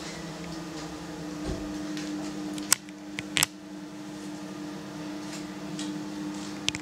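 Bathroom extractor fan running with a steady hum, heard in a small tiled room. A few short sharp clicks come about three seconds in and again near the end.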